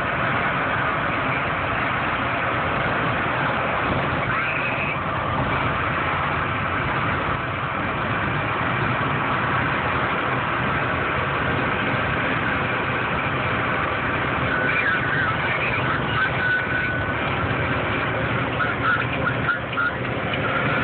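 Steady engine and road noise inside the cab of a truck driving at highway speed.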